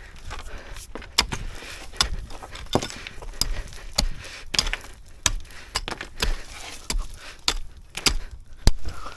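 Pickaxe repeatedly striking and chopping into hard, gravelly ground, about fifteen sharp clinking blows at a steady working pace, each with a dull thud under it.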